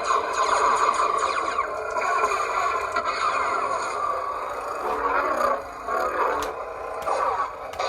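Proffieboard lightsaber playing a Bendu sound font: a steady hum with swing sounds sliding up and down in pitch as the hilt is moved, and a few short sharp clicks in the second half.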